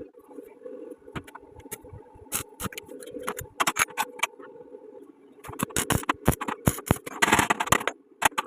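Metal parts clinking and rattling in a quick irregular run of knocks, with a harsher scraping burst near the end, over a steady hum.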